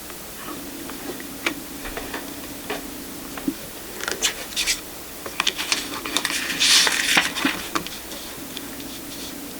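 Tarot cards being handled: scattered light clicks and taps of card stock, growing busier about four seconds in, with a stretch of sliding and rustling about seven seconds in.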